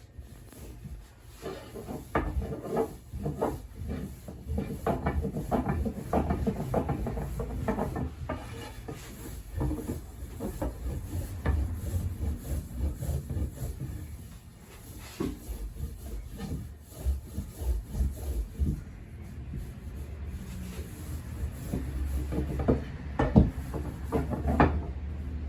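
Wooden soba-making tools rubbing and knocking irregularly as buckwheat dough is worked by hand, with a few sharper knocks near the end.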